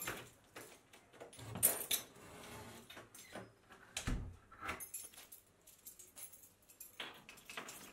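House door opening and shutting, with a low thud about halfway through, then a bunch of keys jangling as they are hung on a wall hook near the end.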